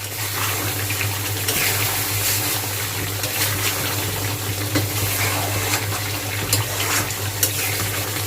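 Pot of cooked mutton curry bubbling and sizzling on the stove, a steady hiss with scattered small pops.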